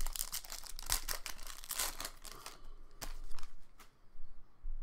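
Trading-card pack wrapper crinkling and tearing as it is opened by hand, the crackle dense for the first couple of seconds. A few sharp clicks follow as the cards are handled.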